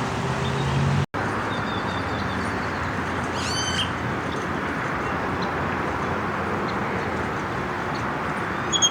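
Birds calling: a short run of high chirping notes about three and a half seconds in and another brief call near the end, over a steady background hiss.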